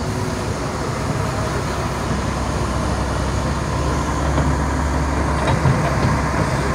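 Hitachi hydraulic excavator's diesel engine running steadily under load as it swings a loaded bucket over a dump truck, with a few knocks about five and a half seconds in as the soil drops into the truck bed.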